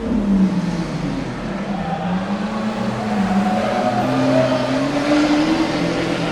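Lamborghini Aventador S's naturally aspirated 6.5-litre V12 under acceleration, its engine note climbing steadily in pitch for several seconds, then dropping back right at the end.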